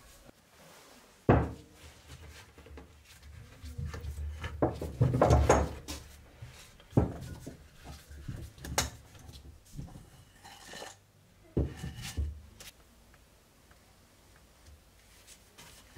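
Metal bar clamps knocking and clattering against a glued wooden handle blank and a wooden workbench as they are handled. A sharp knock comes about a second in, a run of rattling follows in the middle, and a few more knocks come after.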